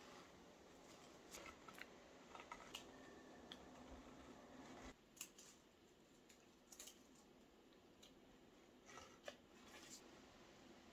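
Near silence in a quiet room, with a few faint, scattered clicks and snips of small objects being handled.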